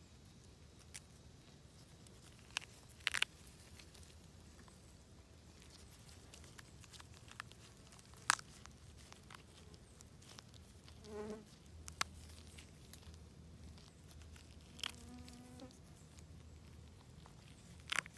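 Small flying insects buzzing close to the microphone in a low steady hum, with two short louder buzzes passing by in the second half. A few sharp clicks from the gloved hand handling the oyster mushrooms on the log.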